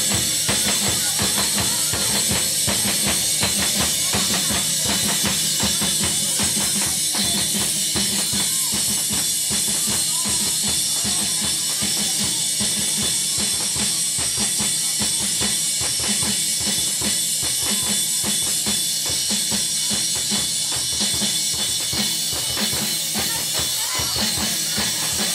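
Vietnamese lion dance drumming: a barrel drum beaten in a fast, steady rhythm of strokes, carrying on without a break.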